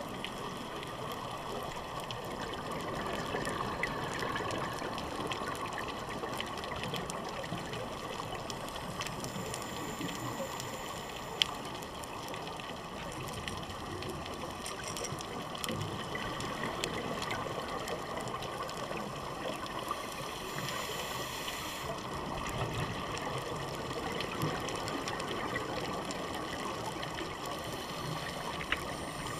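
Underwater ambience on a scuba dive: a steady bubbling wash of divers' regulator exhaust bubbles, swelling and easing, with scattered faint ticks and a sharp click about eleven seconds in and another near the end.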